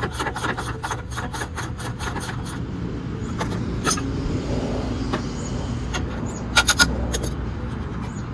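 Hand tools working on a pickup truck's front suspension bolts: rapid metallic clicks about five a second for two and a half seconds, then a steady low rumble with a few sharp clicks, three close together near the end.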